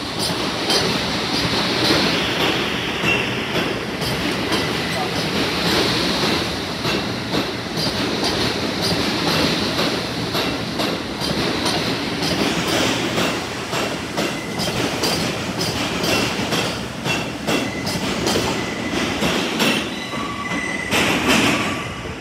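An R62A subway train pulling out of the station close past the platform, with steady wheel and car noise and rapid clacking over the rail joints. Near the end a brief high squeal sounds as the last car heads into the tunnel.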